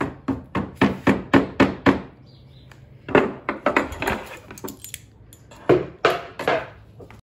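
Rubber mallet tapping a screwdriver against a wooden cabinet drawer to work loose badly fitted hardware. There is a quick run of strikes about four a second for two seconds, then shorter bursts of knocks about three seconds in and again near six seconds.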